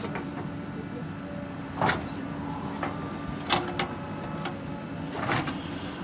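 JCB 3DX backhoe loader's diesel engine running steadily under hydraulic load as the backhoe arm swings and digs. Several short, sharp clanks from the bucket and arm come through, the loudest about two seconds in.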